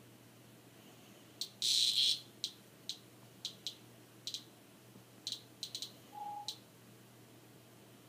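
A cicada gives short distress buzzes while being batted by a cat's paws. There is one longer buzz of about half a second near two seconds in, then around ten brief, sharp buzzes spread over the next few seconds.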